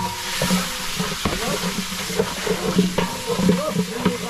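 Hands mixing chopped raw pork in a plastic basin, a wet stirring, squishing sound with a few light knocks, over a steady hiss.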